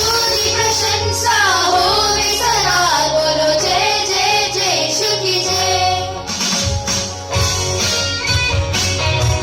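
Music: a wavering melody line over accompaniment, joined by a steady beat of percussion strikes in the second half.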